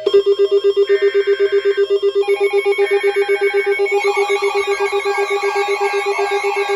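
Emergency Alert System alert tones opening a new alert. A loud alarm beeps rapidly, about eight times a second, over two bursts of SAME header data, and a warbling tone joins about four seconds in.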